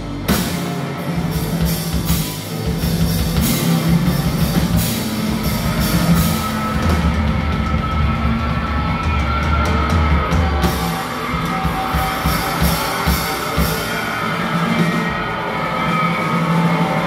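Live rock band playing a song: electric guitar, bass and a drum kit.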